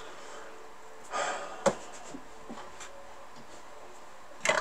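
Quiet handling of a 1963 Royal FP manual typewriter on a workbench: a short breathy rustle about a second in, one sharp click just after, a few faint ticks, and a brief scrape near the end.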